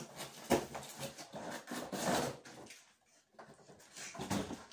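Packaging being rummaged and handled while a laptop charger is fetched: rustling with scattered knocks, a sharp knock about half a second in, and a brief lull about three seconds in.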